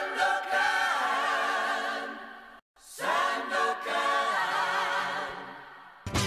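A choir singing two long held chords, each fading away, with a brief silent break between them. Music with a beat comes in just before the end.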